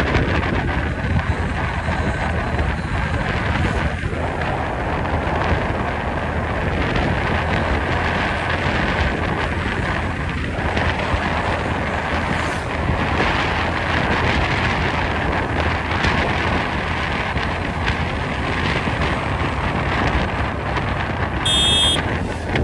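Steady rush of the Meghna river's water with wind buffeting the microphone and a constant low hum underneath. A brief high-pitched tone sounds near the end.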